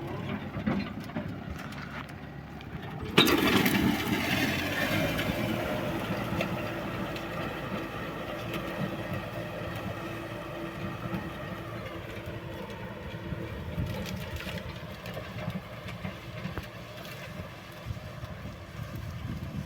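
Kubota M6040S tractor's four-cylinder diesel engine running. About three seconds in it turns suddenly louder, then settles into a steady run.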